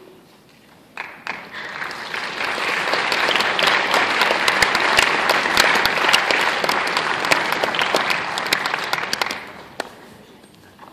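Audience applauding: dense clapping starts about a second in, swells and holds, then dies away near the end.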